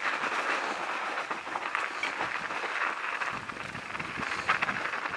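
Mountain bike rolling fast down a dirt trail: a steady rush of knobby tyres over dirt and dry leaves, with the bike's frame and chain rattling and clicking over the bumps.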